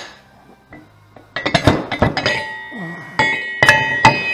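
Heavy steel parts of a homemade press-brake bending die clanking and clinking as they are handled on a metal table. The run of knocks starts about a second and a half in, and the metal rings on after the strikes.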